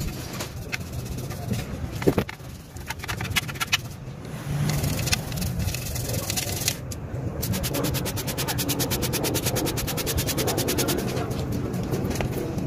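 A small brush scrubbing back and forth inside a chrome car exhaust tip, in scattered strokes at first, then a fast, even run of strokes about halfway through.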